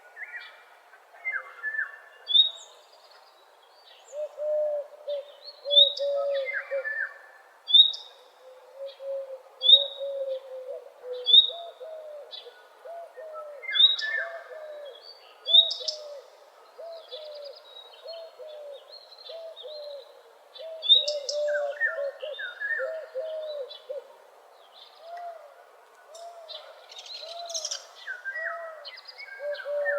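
Morning chorus of several birds singing together: a short high note repeating about every two seconds, scattered trilled phrases, and a steady run of low, arching calls underneath.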